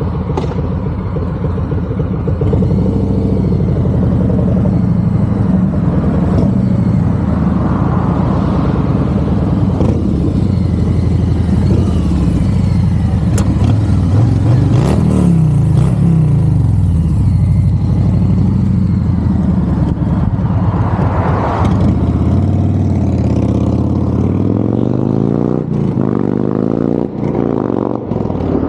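Harley-Davidson FXDR 114's Milwaukee-Eight 114 V-twin running through a Two Brothers Comp-S 2-into-1 exhaust. The bike approaches, passes close by about halfway through, then pulls away with the revs rising several times.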